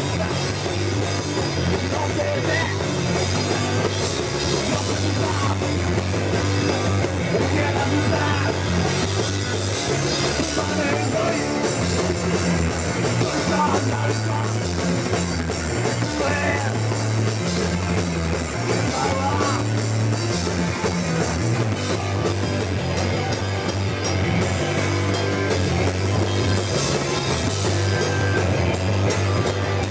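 Hardcore punk band playing live: a drum kit with crashing cymbals and electric guitars, in a continuous wall of sound with no breaks.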